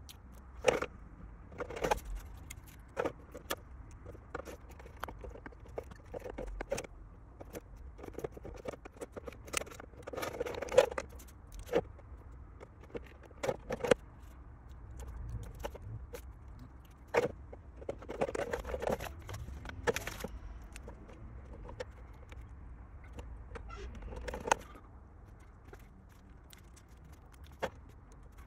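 Irregular clicks, taps and rustles of hands handling small plastic parts and a model body on a bench.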